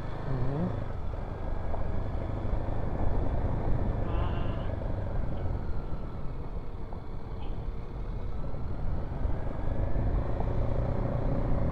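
Single-cylinder Kawasaki KLX dual-sport motorcycle engine running while riding, its pitch dipping gently and rising again, under steady wind and road noise.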